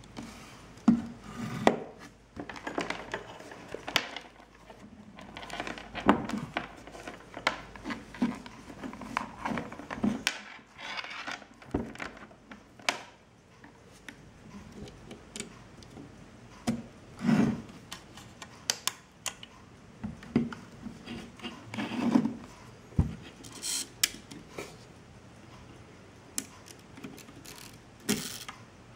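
Irregular clicks, taps and rubbing as hands handle a 1952 Belfoca folding camera's lens shutter and fit a flash sync cord to it.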